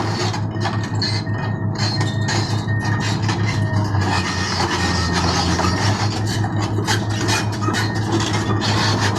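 Komatsu PC220 crawler excavator travelling: its diesel engine runs steadily with a low pulsing hum while the steel tracks clank and clink continually.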